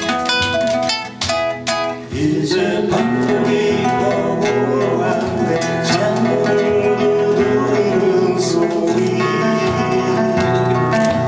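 Acoustic guitar trio playing: a picked line of single notes, then about two seconds in a fuller accompaniment with a man singing.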